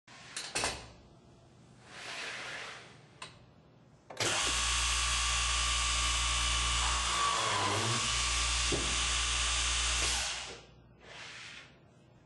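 GANNOMAT DB21 dowel boring machine running a line-boring cycle. Clicks and a short air hiss come first. Then, from about four seconds in, the 21-spindle drilling unit's motor runs steadily for about six seconds as the 5 mm bits bore a row of holes in the panel. It stops, and a second short hiss follows near the end.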